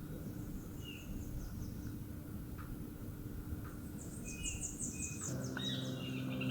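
Outdoor ambience: a low, steady rumble with a few short bird chirps and a quick high trill about four seconds in. Near the end, a steady low hum of several tones sets in.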